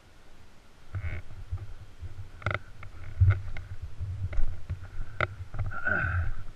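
Footsteps crunching on loose gravel, with an uneven low rumble of handling noise on the microphone starting about a second in.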